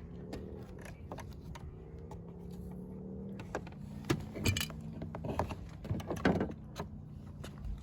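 Scattered plastic clicks and knocks as the interior door handle is pressed and worked into its hinge pins in the door trim, over a steady low hum.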